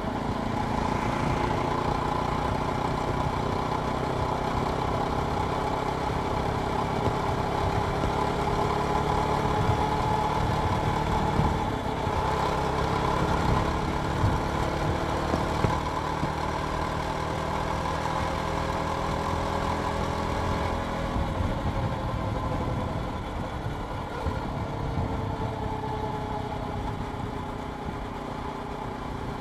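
Jawa Perak's single-cylinder engine running while riding, its pitch rising and falling slowly with engine speed and dropping off in the last few seconds, with wind rush underneath.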